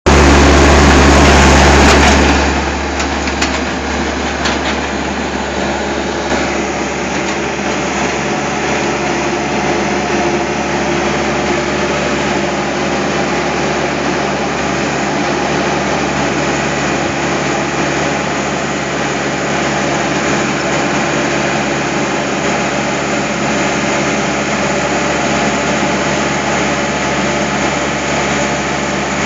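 Diesel engine of a Tata Hitachi crawler excavator running steadily under hydraulic load as the machine works its boom and tracks to come down off a lorry bed. The sound is louder and deeper for the first two seconds, then settles into an even running note.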